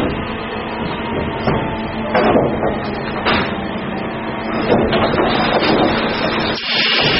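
Sawmill lumber sorting line running: steady machinery noise from the conveyors, with sawn wooden boards knocking and clattering against each other and the steel frame at irregular intervals, about once a second.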